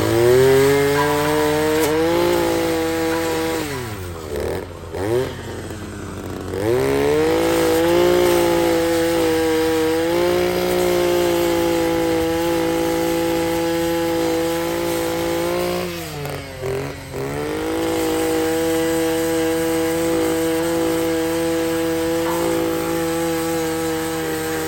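Handheld grinder sharpening a mulcher's cutting teeth: it spins up to a steady high whine, and twice the motor is let off, winds down and is spun back up before it runs steadily again.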